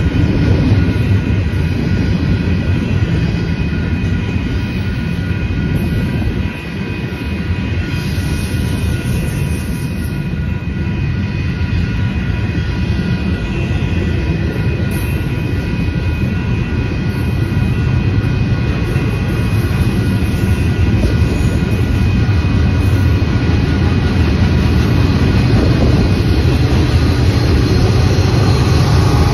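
Double-stack container freight train rolling past: a steady rumble of steel wheels on rail that grows louder near the end as mid-train Union Pacific diesel locomotives come up.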